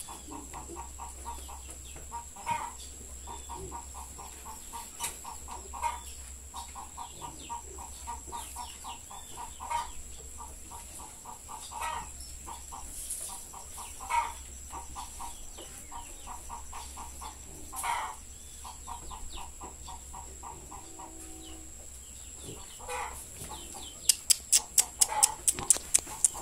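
Farm animal calling: runs of rapid soft clucking pulses, about seven a second, broken every few seconds by a louder single call. Near the end a fast series of sharp clicks starts, about three a second, louder than the rest.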